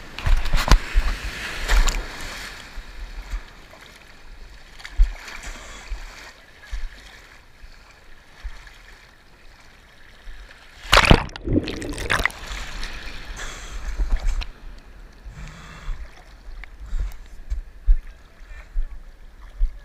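Ocean surf washing and breaking around a camera held at water level, with irregular splashes against it. About eleven seconds in there is a loud rush as a wave breaks over the camera.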